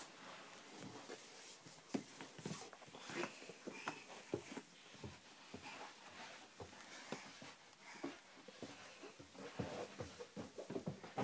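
Soft, irregular taps and thumps of a baby crawling, hands and knees on carpet and wooden floor, with faint breathy sounds from the baby.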